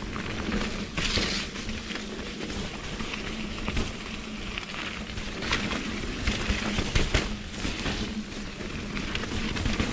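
Mountain bike riding down a dirt trail, heard from the bike rider's GoPro: a steady rush of tyre and trail noise with frequent clicks and knocks as the bike rattles over bumps and roots.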